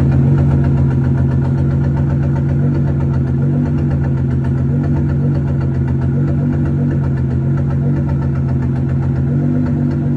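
Nissan GT-R R35's twin-turbo V6 idling steadily in park, with a tapping or miss in the exhaust note that the owner cannot yet place.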